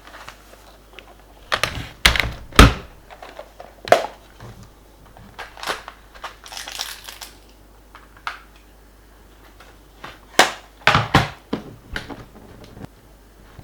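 Hard plastic clicks and knocks of a laptop being handled on a work surface, as the Acer Aspire E1-570 is opened up for a keyboard replacement. The sharpest knock comes about two and a half seconds in, a scraping rustle follows around six to seven seconds, and another cluster of knocks comes near the end.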